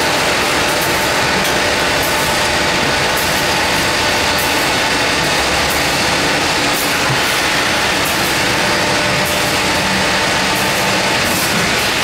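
Continuous nut frying line running: a steady, loud machinery noise from the inclined stainless-steel flight conveyor carrying fried nuts and the equipment around it, with a faint constant whine.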